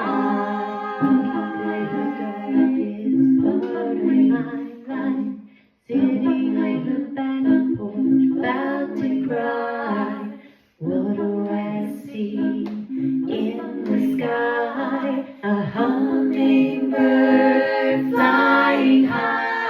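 A song sung by a woman over a steady low drone, in phrases, with two short pauses, at about six and eleven seconds in.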